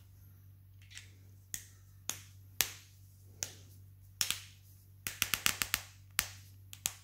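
Sharp clicks and taps of a tobacco pipe being handled, with a quick run of clicks about five seconds in, over a steady low hum.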